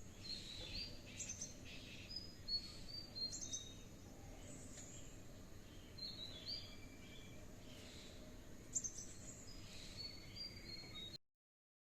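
Birds chirping and calling, faint: many short, high whistled notes and quick glides, some repeated in little runs, over a soft outdoor background hiss. The sound cuts off to silence near the end.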